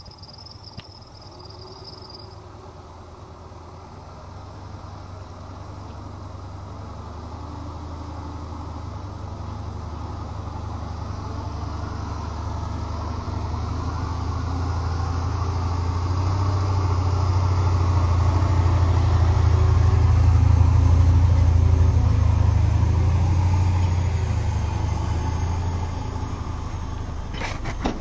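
Homemade off-road truck's Ford Sierra 1.8 turbodiesel four-cylinder engine running as it drives through deep snow toward the listener, growing steadily louder as it closes in, loudest about three quarters of the way through, then easing slightly as it comes alongside.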